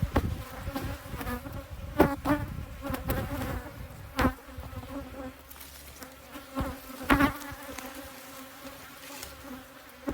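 Defensive honeybees buzzing around the microphone in a steady drone, with louder swells as bees fly close past about two, four and seven seconds in. The beekeeper takes this attacking behaviour for the sign of a colony with Africanized genes.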